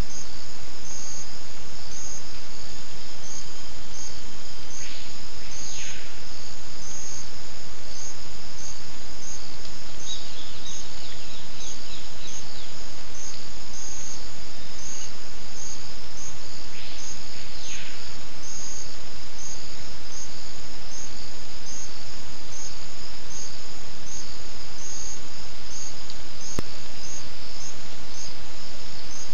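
Rainforest insects chirping in a steady, evenly spaced pulse over constant hiss, with two brief swooping calls about five and seventeen seconds in. A single sharp click sounds near the end.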